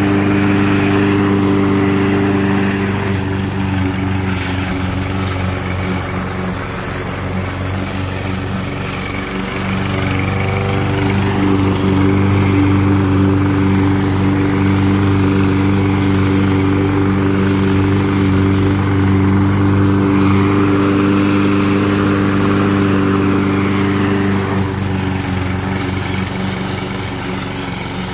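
Toro Personal Pace Auto Drive self-propelled walk-behind mower's 163cc single-cylinder engine running steadily while mowing, dipping a little in level about a third of the way in before picking back up.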